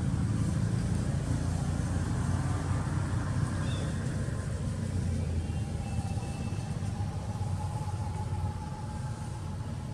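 Steady low rumbling background noise that eases a little after the middle, with a faint thin steady tone through the second half.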